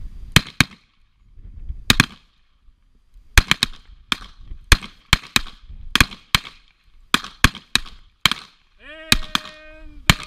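A rapid, irregular series of revolver gunshots, about twenty in all, some coming in quick pairs and triplets, each a sharp crack with a short ring after it. A brief voice call sounds near the end.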